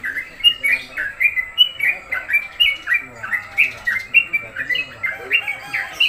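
Caged yellow-vented bulbuls chirping, a quick string of short notes several times a second. The birds hang cage beside cage, set against each other to spur them to sing.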